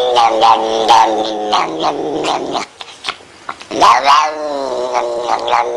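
Domestic cat yowling in two long drawn-out wails. The first sinks in pitch as it ends. After a short break, the second rises and then falls.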